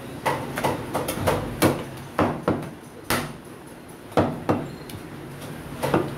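Heavy meat cleaver chopping bone-in goat meat on a round wooden chopping block: about a dozen sharp chops at an uneven pace, coming quickly in the first couple of seconds, then single strokes with a longer pause near the end.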